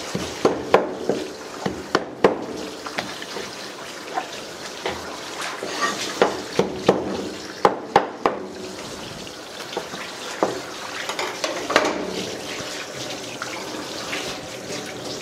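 Tap water running steadily beside a sashimi chef's cutting board. Over it, a heavy knife knocks and scrapes sharply on the plastic board as fish is cut, the knocks coming thick in the first eight seconds and thinning out after.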